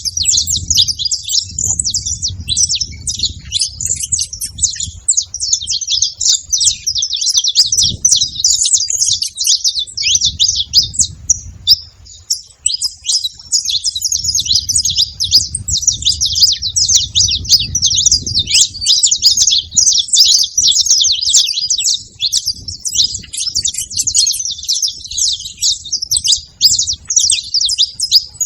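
A group of saffron finches chirping and singing together: a dense, unbroken chatter of quick, high, overlapping notes. A low rumble comes and goes underneath.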